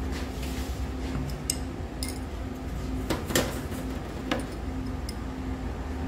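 A few sharp clinks of tableware and glass, the loudest a little over three seconds in, over a steady low room hum.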